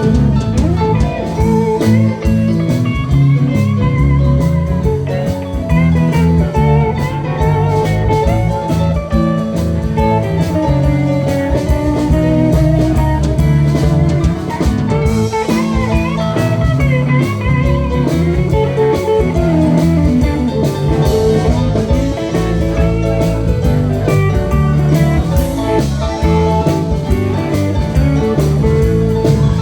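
Live blues band playing an instrumental break: guitar lead with bent, gliding notes over drums and bass.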